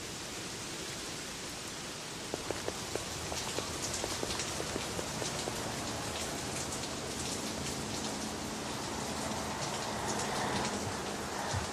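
Steady rain falling, with sharp drips and splashes scattered through it from about two seconds in.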